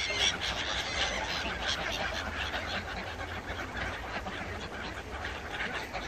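A mixed flock of gulls, greylag geese and ducks on a lake calling over one another: a dense, unbroken chatter of many short overlapping calls.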